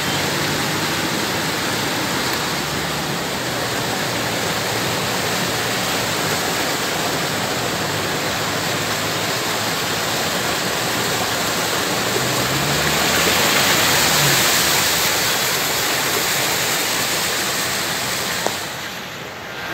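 Floodwater rushing and pouring across a road in a steady loud torrent, swelling a little about two-thirds of the way through.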